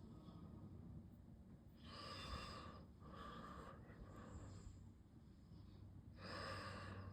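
Person breathing close to the microphone: three short breaths, about two, three and six seconds in, over a faint steady low hum.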